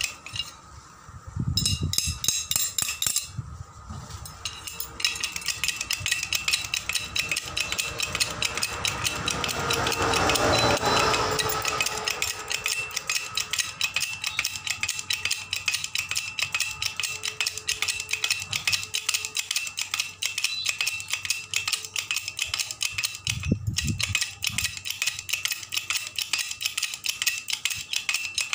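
Hydraulic bottle jack being pumped by hand with its lever, the metal handle and pump plunger clacking in rapid, even strokes. A rushing noise swells and fades midway, and a few dull thumps come early and near the end.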